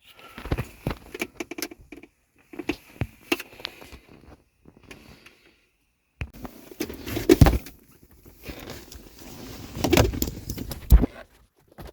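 Handling noises: a run of irregular clicks, knocks and rustling, with a short pause in the middle and the loudest knocks in the second half.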